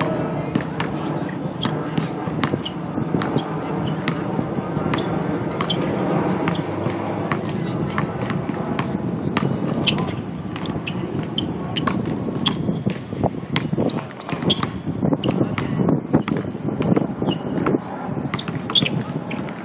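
A basketball being dribbled on asphalt, sharp bounces at an uneven pace, over the murmur of onlookers' voices.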